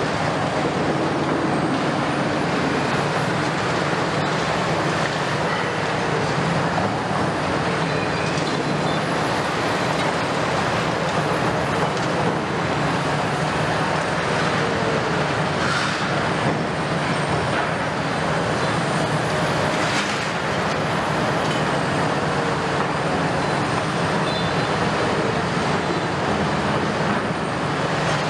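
Kobelco 280, 300 and 350 crawler excavators working a demolition rubble pile: diesel engines running steadily under load with hydraulic whine, concrete rubble crunching and clattering, and a couple of sharper knocks in the middle.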